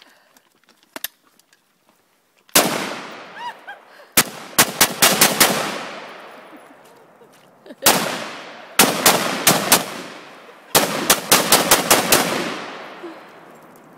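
SIG 556 semi-automatic rifle fired in three quick strings of shots, about five a second, each string trailing off in a long echo.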